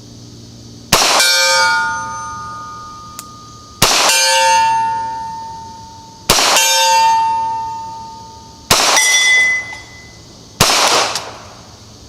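Five shots from a Ruger PC Carbine in 9mm, about two and a half seconds apart. The first four are each followed by the ringing of an AR500 steel target being hit, a tone that fades over a second or two. The fifth shot has no clear ring after it.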